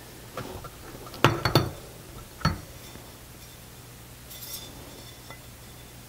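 Metal sprocket clinking against the bicycle wheel's hub and spokes as it is lined up by hand: a light click, then two sharp clinks a little over a second in and one more about a second later, followed by a faint rustle.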